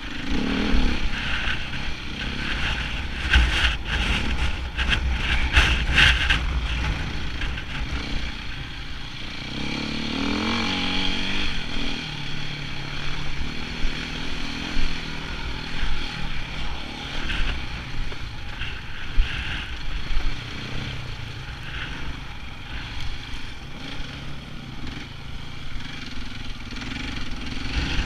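KTM enduro motorcycle's engine running under the rider on a rough dirt track, the revs rising and falling, with a rising rev about ten seconds in. A run of knocks and jolts from the bike about three to six seconds in.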